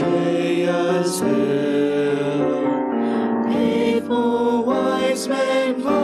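Mixed vocal quartet of three men and a woman singing a slow Christmas song together in harmony, on long held notes.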